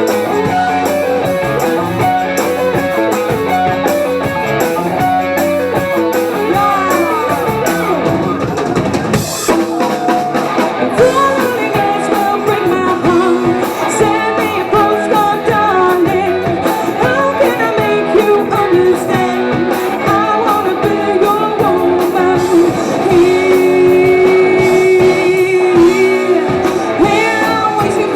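Live rock band playing: electric guitar and drum kit under a lead vocal, with a long held sung note near the end.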